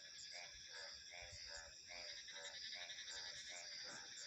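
Frogs croaking in an even rhythm, about three calls a second, over a steady high-pitched buzz.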